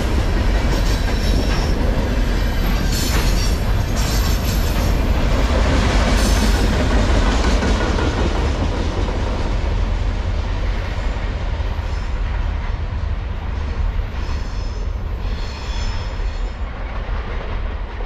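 Wheels of a mostly empty freight train's container cars rumbling and clattering over the rails as they roll past, with a few clanks. Near the end of the train the rumble fades steadily as the last car moves away.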